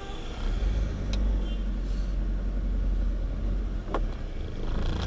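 A truck's engine and road noise heard inside the cab, a steady low rumble that grows louder about half a second in as the truck gets moving. Two sharp clicks come about a second in and near the end, and a brief hiss follows at the close.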